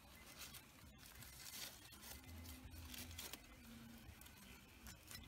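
Aluminium foil being pulled open with a knife and fork: faint crinkling and tearing with scattered small clicks.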